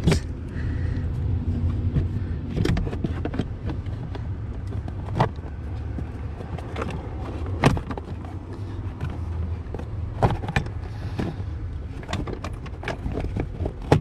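Plastic steering-column trim covers being handled and fitted into place, giving sharp clicks and knocks every couple of seconds over a steady low hum.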